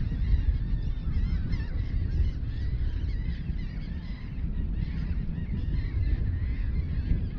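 A flock of birds calling continuously, many short chirping calls overlapping, over a steady low rumble of wind buffeting the microphone.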